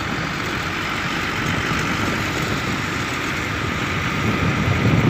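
Hino RN285 coach's rear-mounted six-cylinder diesel engine running close by, with road traffic, growing louder near the end.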